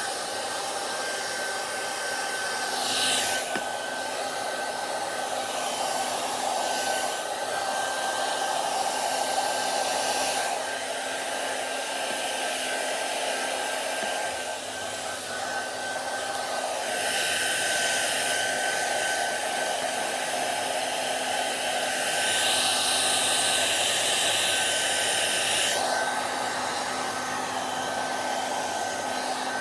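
Hair dryer running without a break, a steady rush of air with a thin high whine. Every so often, for a few seconds at a time, the rush grows louder and hissier, most of all about three-quarters of the way through.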